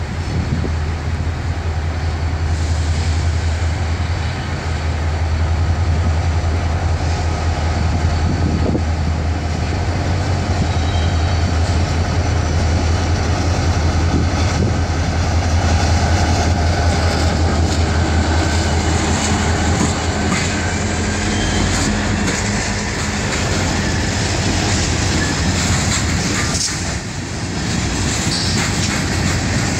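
Florida East Coast Railway diesel-electric freight train passing: a steady low drone from the locomotive's diesel engine fills the first part, then gives way to freight cars rolling by with the clickety-clack of wheels over the rail joints.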